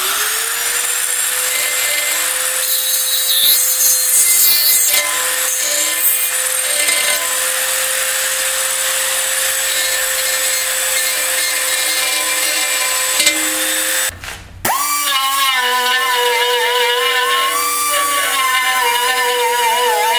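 Die grinder with a non-ferrous burr spinning up and grinding casting flash off an aluminium Turbo 400 transmission case: a steady whine with the scraping of the burr over it. About 14 seconds in it stops briefly and starts again, and its pitch then wavers as the burr bites.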